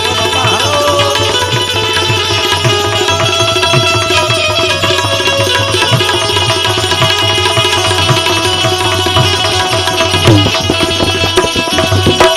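Instrumental interlude of Gujarati folk-devotional (santvani) music. Tabla-style hand drums keep a steady rhythm, with bass strokes that bend in pitch, under sustained held melody notes.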